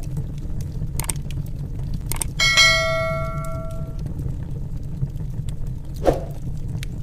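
End-screen subscribe-animation sound effects: a click about a second in and another just after two seconds, then a bell-like notification ding that rings out for about a second and a half, and a short whoosh near the end. Underneath runs a steady low rumble with faint crackles from a log fire.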